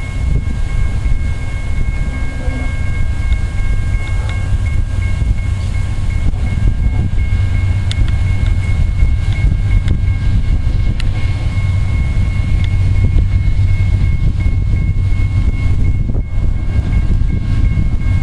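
Diesel freight locomotive approaching and running: a deep steady rumble, with a faint steady high whine over it.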